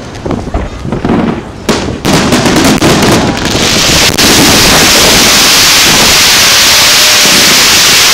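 Fireworks going off: a few scattered bangs, then a rapid crackling barrage about two seconds in. The crackling merges into a continuous loud hiss from about four seconds in.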